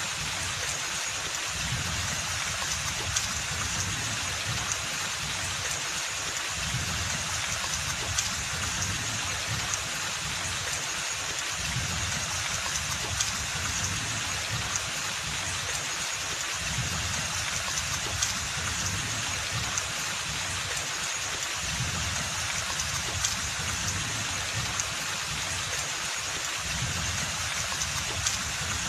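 Steady rain falling on forest foliage, a dense even hiss with scattered louder individual drops and a low rumble that comes and goes.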